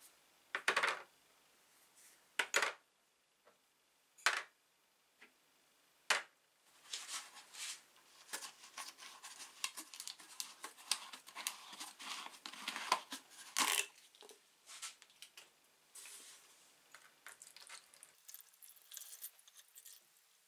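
Small metal pump parts set down one at a time into a plastic tub: four separate clinks. Then a thin plastic bottle crackles as it is handled and its cap unscrewed, and near the end rust-remover liquid pours into the tub with a faint high hiss.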